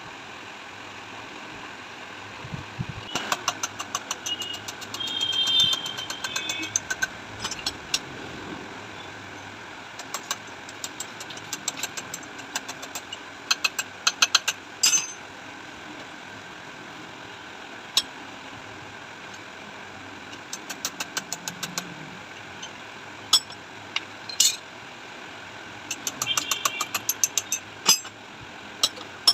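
Workshop hand-tool work on a motorcycle rear shock absorber being dismantled: several runs of rapid metallic clicks, like a ratchet spanner, and a few single sharp knocks over a steady mechanical hum, with a brief high squeal about five seconds in.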